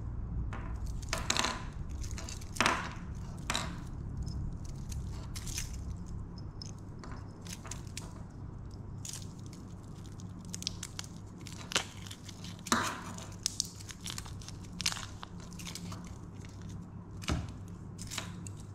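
Metal link bracelet and fold-over clasp of an Orient Flight wristwatch being handled: irregular small clicks and clinks of the links and clasp, the sharpest a few seconds in and again near the middle, over a steady low hum.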